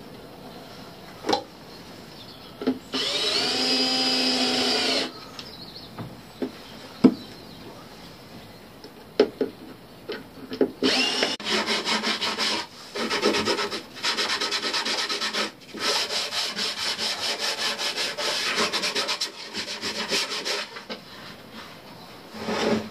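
A cordless drill runs at a steady pitch for about two seconds. After a few knocks, a handsaw cuts plywood in quick, even strokes, several a second, with a few short pauses.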